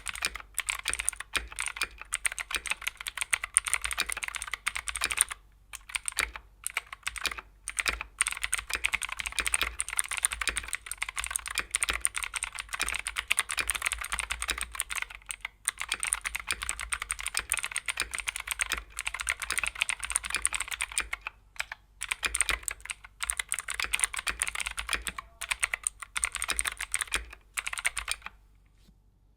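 Keychron K6 Pro mechanical keyboard with clicky Keychron K Pro Blue switches being typed on in fast runs of keystrokes with a few brief pauses. The typing stops about a second before the end.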